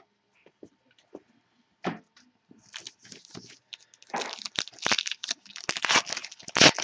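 Baseball card pack wrapper being torn open and crinkled. A few faint clicks come first, then loud, dense crinkling starts about four seconds in.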